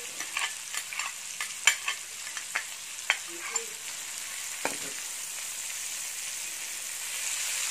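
Asparagus and crushed garlic sizzling in butter in a frying pan, a steady hiss. Over the first few seconds a metal ladle clicks and taps as the garlic is scraped in, then the pan is stirred and the sizzle grows a little louder near the end.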